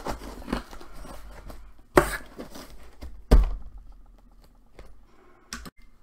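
Cardboard box and crumpled kraft packing paper being handled: rustling and scraping, with two sharp thumps against the box about two and three seconds in, and a couple of light knocks near the end.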